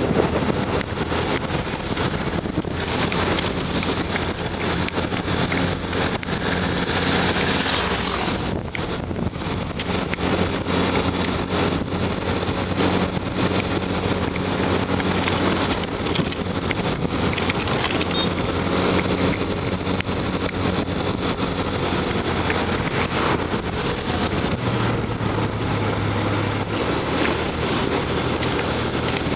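Wind rushing over the microphone of a moving motorcycle, with the bike's engine running steadily underneath at cruising speed. The low engine note changes pitch near the end.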